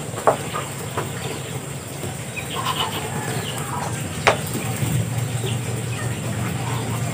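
Poultry clucking softly now and then, with a sharp knock about a third of a second in and another a little past four seconds, over a steady low hum.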